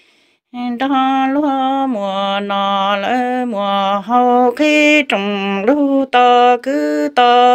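A woman singing kwv txhiaj, Hmong sung poetry, solo and unaccompanied, in long held notes with wavering ornaments, pausing only for quick breaths; she takes up the line again about half a second in.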